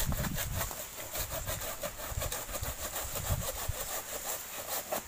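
Rapid scraping and rustling as a heavy bunch of green coconuts is worked loose from a low coconut palm, the stalk and fronds rubbing.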